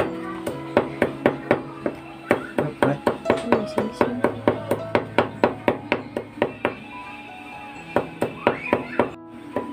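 Knife chopping garlic on a thick wooden chopping block: quick, even chops about four a second, pausing for about a second near the end before starting again.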